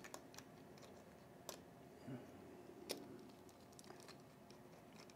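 Near silence broken by a handful of faint metal clicks from a nut driver and terminal nuts on a compressor's terminal studs, the loudest about a second and a half and three seconds in.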